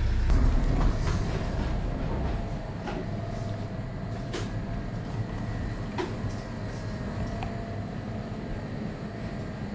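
Steady indoor hum of a small grocery shop, with a few light clicks and knocks. A heavier low rumble in the first second gives way to the quieter hum.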